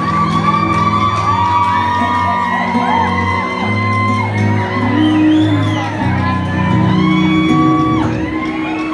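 Live band holding sustained chords through the closing bars of a song, with the audience whooping and shouting over the music.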